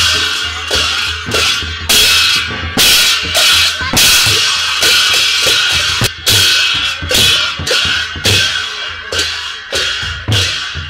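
Drums and cymbals playing a steady, driving beat, with loud strokes about twice a second over the continuous ringing of the cymbals.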